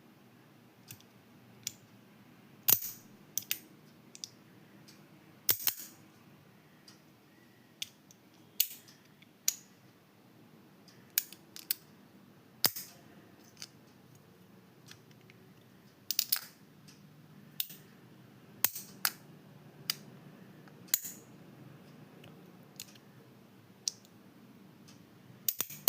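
Magnetic slider fidget toy: its magnetic pieces slid and snapping together with sharp clicks, singly and in quick doubles, at irregular intervals a second or few apart.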